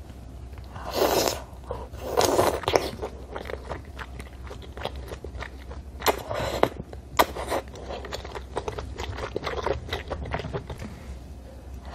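A person eating malatang noodles close to the microphone: two slurps of noodles in the first few seconds, then wet chewing with many small mouth clicks and smacks.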